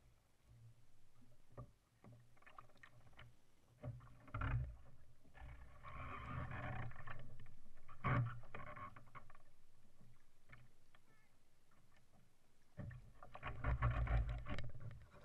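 Water sloshing and splashing against a sea kayak's hull and paddle during sculling strokes, heard close up from a camera on the deck with a low rumble. The sound comes in uneven surges, louder about six to eight seconds in and again near the end as the boat comes back upright.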